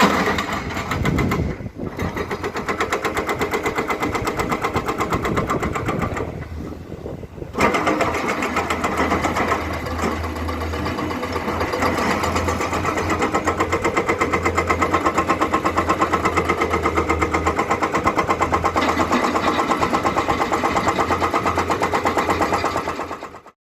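Komatsu PC210 excavator's diesel engine running under load with a fast, even pulsing beat; it drops away briefly about six seconds in, then comes back up and runs steadily before cutting off near the end.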